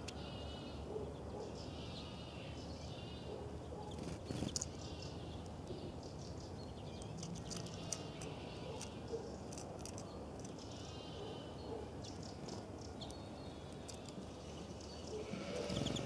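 Repeated short, quavering animal calls every few seconds, with a few sharp clicks between them.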